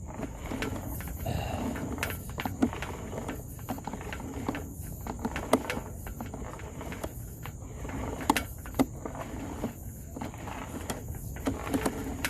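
Irregular sharp clicks and knocks over a low rumble, with a steady high chirring of crickets.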